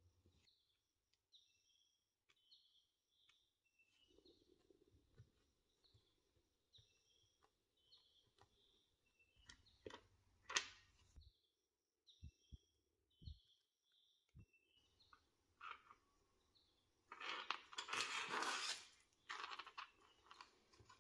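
Faint, short bird chirps repeating about once a second behind a near-silent workbench. A few light clicks come about halfway through. Near the end a couple of seconds of rustling, handling noise is the loudest sound.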